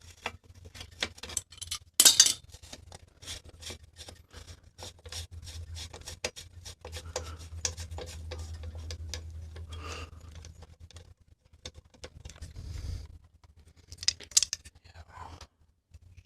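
Metal hand tools working on bicycle parts: a long run of quick metallic clicks and taps, with a sharp clank about two seconds in and a low hum under much of it.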